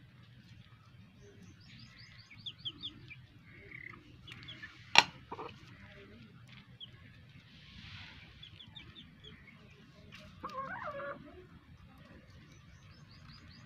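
Chickens foraging: quick runs of short, high chirps twice, and a short lower hen call near the end. A single sharp click about five seconds in is the loudest sound.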